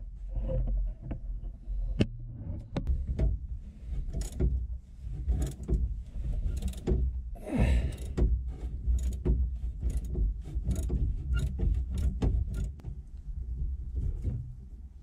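Metal hand tools, a wrench among them, clicking and knocking irregularly against a truck's metal fittings and frame as bolts are worked by hand, over a low rumble of handling noise, with a short hiss about halfway through.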